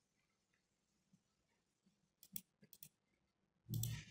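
Near silence broken by a few faint, sharp computer clicks about two to three seconds in, then a short, louder thump near the end.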